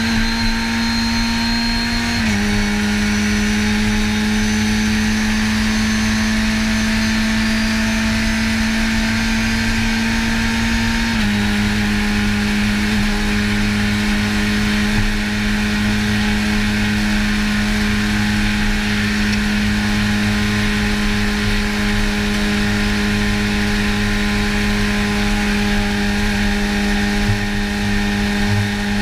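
Race car engine at full throttle, heard from inside the cockpit, with road and wind noise. The pitch drops with an upshift about two seconds in and another about eleven seconds in, then climbs slowly in top gear.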